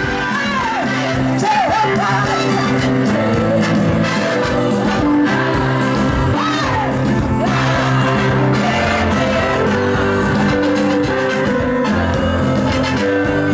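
Music with singing: a voice sliding up and down between notes over steady instrumental backing.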